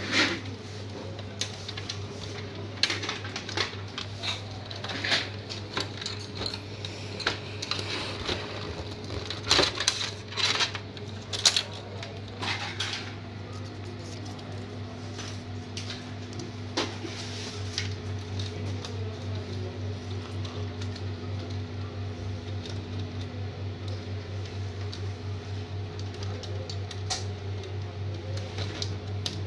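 Clicks and knocks of a laser printer's plastic scanner housing being handled and fitted, over a steady low hum. The clicks die away about halfway through, and the hum then pulses rhythmically several times a second.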